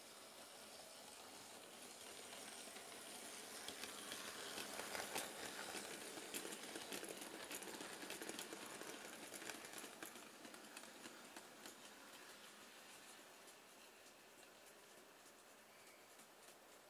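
A Bachmann OO gauge Class 20 model diesel locomotive hauling a rake of tank wagons past on the track: the faint running noise of motor and wheels grows, peaks with a run of sharp clicks from the wheels on the rails as the wagons go by, then fades as the train moves away.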